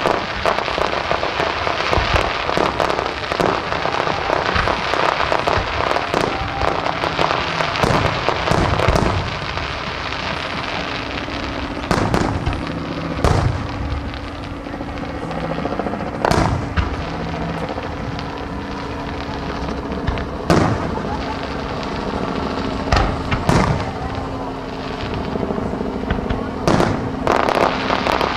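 Aerial fireworks shells bursting: a thick run of rapid pops and crackle for roughly the first nine seconds, then separate booms every one to three seconds.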